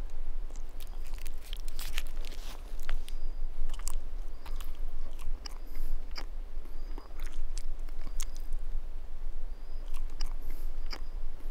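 A person chewing a Snickers bar, with irregular crunching bites.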